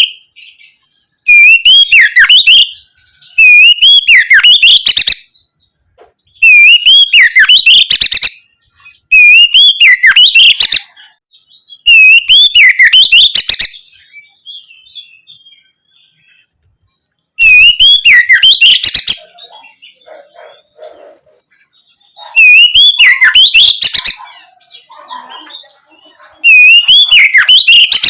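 Oriental magpie-robin singing loudly: the same swooping, whistled phrase repeated about eight times, each lasting one and a half to two seconds, with short pauses between and a longer pause around the middle.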